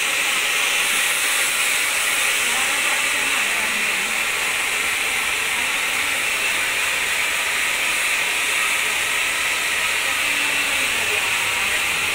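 Handheld hair dryer blowing steadily, its air rushing through wet hair as it is dried.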